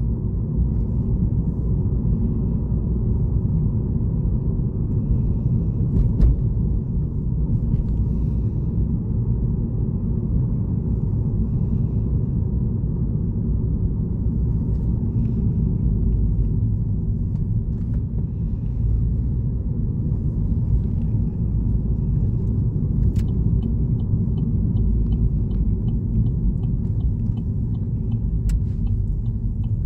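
Steady low rumble of a car's engine and tyres, heard from inside the cabin while driving. One sharp click about six seconds in, and faint regular ticking, a few ticks a second, over the last several seconds.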